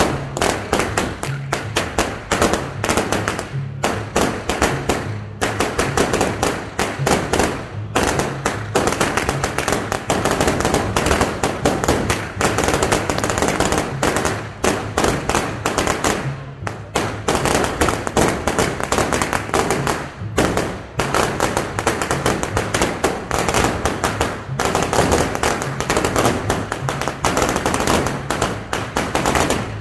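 Long strings of firecrackers popping in fast, unbroken crackling runs, with brief pauses every few seconds.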